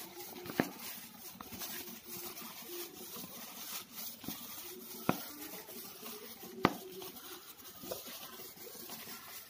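Plastic-gloved hand pressing and squeezing crumbly flour-and-oil dough in a glass bowl: faint crinkling and rustling, with three sharp clicks. The dough is still dry and separate and has not yet come together.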